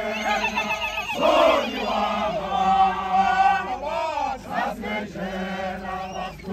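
Men of a Zulu regiment chanting and singing together as a group, holding long notes.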